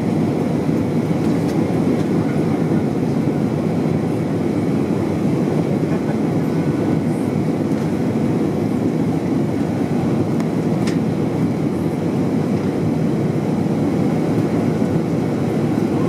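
Steady cabin noise inside an Airbus A320 on approach, heard from a window seat over the wing: an even, low roar of engines and airflow with no change in level.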